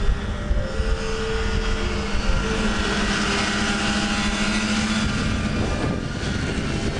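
Snowmobile engine running steadily at travelling speed: a steady drone with a broad rushing noise over it.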